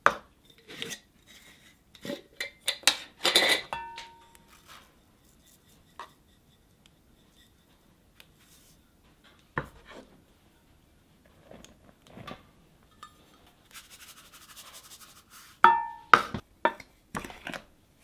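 Glass measuring cup, small bowl and spoon clinking and tapping against a glass mixing bowl as dry ingredients are scooped and tipped in, a few clinks ringing on briefly. A soft hiss of dry ingredients pouring into the bowl runs for about a second and a half near the end, followed by a cluster of sharper clinks.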